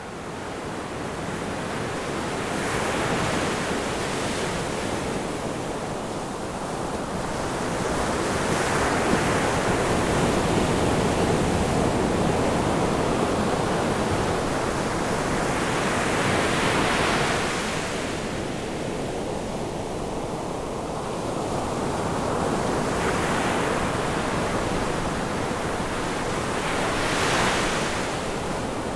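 Ocean surf: a steady wash of waves that swells and ebbs in slow surges every several seconds, fading in at the start.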